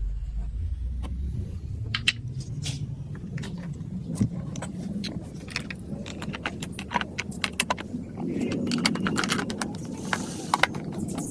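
Marbles rolling and clattering through a plastic building-block marble run: a steady rolling rumble under many sharp clicks, busiest in the last few seconds.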